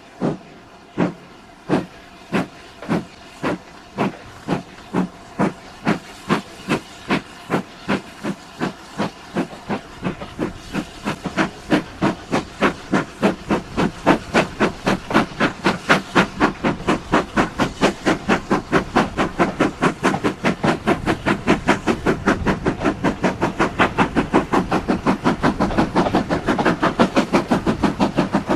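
Exhaust beats of GWR 2-8-0 tank engine No 4270 as it starts off and picks up speed, over a steady hiss of steam. The chuffs quicken from about one a second to three or four a second and grow louder.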